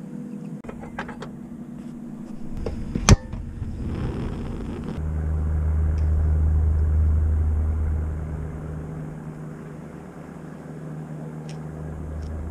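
An engine running steadily with a low hum that grows louder through the middle and then fades away, as something motorised passes. One sharp click about three seconds in.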